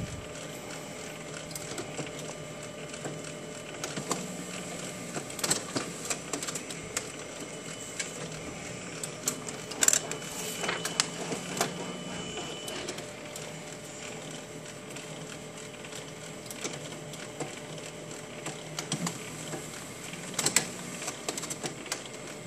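Samsung CLX-3175FNK colour laser printer running a print job: a steady mechanical whir with many irregular clicks and clacks as the pages feed through.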